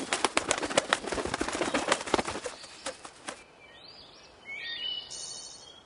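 Flapping wings of a flying swan, a quick run of wingbeats that fades out after about three seconds, then a few faint bird chirps near the end.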